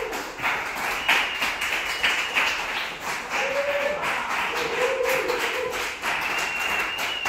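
Audience applause: dense clapping, with a few voices rising briefly over it.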